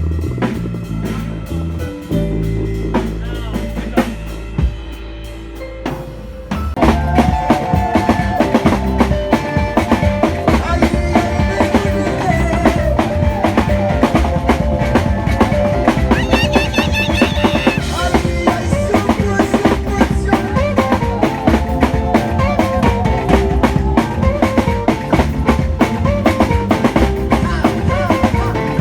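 A band playing: held low notes at first, then about six and a half seconds in the drum kit comes in with the full band at a steady, busy beat.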